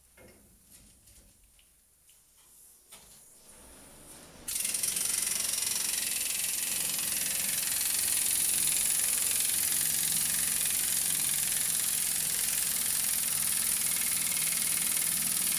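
Pneumatic impact wrench running continuously on an old rear leaf-spring U-bolt nut, loosening it for removal. Faint handling knocks come first; the wrench starts abruptly about four and a half seconds in, and its steady, even hiss and rattle keeps on without a break.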